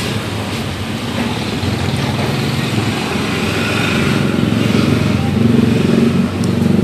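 A motor vehicle's engine running, a low steady hum that grows louder over the last few seconds.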